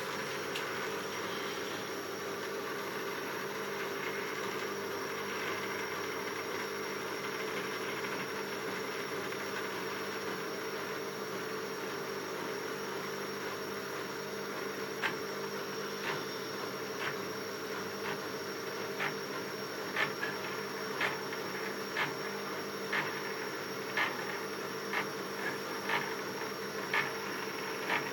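Stepper motors of a four-axis CNC hot-wire foam cutter driving the wire carriages slowly, a steady hum with several steady tones. Through the second half, short sharp ticks come about once a second.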